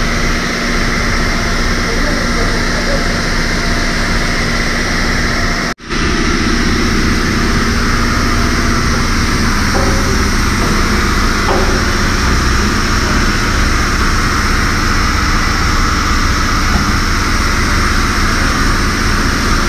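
High-pressure washer lances spraying water onto a truck's tarpaulin curtain side, a loud steady hiss over a low pump hum. It cuts out for a split second about six seconds in, then carries on.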